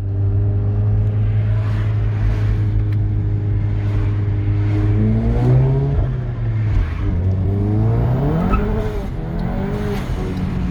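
Stage 2 tuned Seat Leon Cupra's 2.0 TSI turbocharged four-cylinder engine running at steady revs. The revs then rise and fall a couple of times before settling at a higher steady note. Faint sharp pops are scattered through it.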